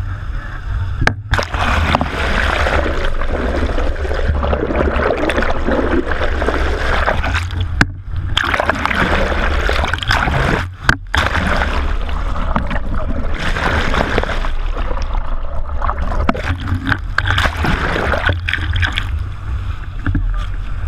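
Fishing boat under way: a steady low engine hum under rushing water and wind on the microphone. The sound drops out briefly a few times.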